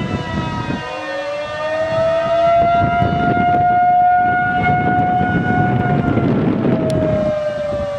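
Outdoor tornado warning siren wailing: its tone glides up in pitch about a second in, holds, then starts to fall near the end. Wind noise on the microphone runs underneath.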